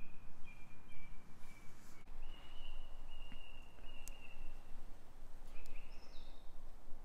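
Woodland birdsong: a bird sings a series of clear whistled notes, several held steady at one pitch, with a few higher notes near the end, over a steady low rumble of outdoor noise.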